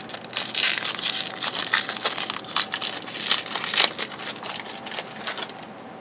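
Wrapper of a 2008 Upper Deck Heroes trading-card pack being torn open and crinkled by hand, a dense run of crackles that dies away near the end.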